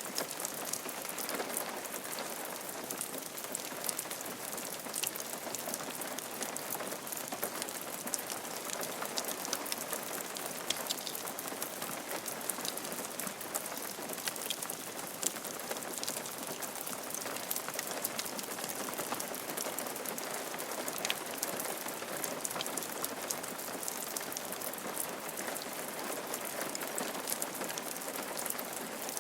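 Steady rain falling on a roof, an even hiss with many small drop clicks throughout.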